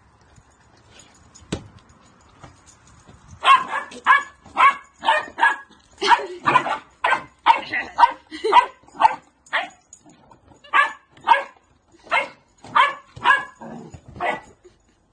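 A dog barking repeatedly in short, high barks, about two a second, starting about three and a half seconds in. There is a single sharp knock before the barking.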